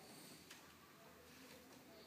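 Near silence: room tone, with a faint click about half a second in.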